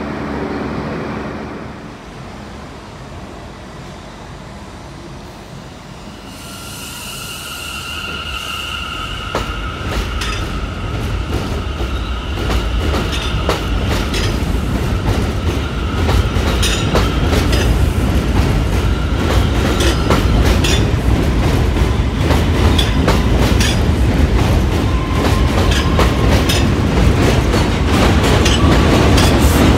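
New York City subway train rolling along steel rails. From about six seconds in, a low rumble builds, with a steady wheel squeal and rapid clicks of the wheels over rail joints, and it grows louder toward the end. For the first second or two, a standing train's steady hum is heard.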